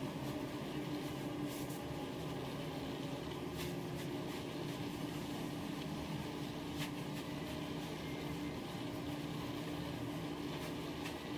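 Steady low hum and hiss of room noise, with a few faint, short rustles from a woven cotton baby-wrap being pulled through its own loops as it is braided.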